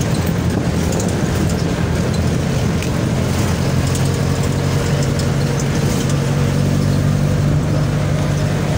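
Engine and road noise of a moving passenger vehicle, heard from inside through its open side. The engine hum is steady and settles into a stronger, even drone about three and a half seconds in.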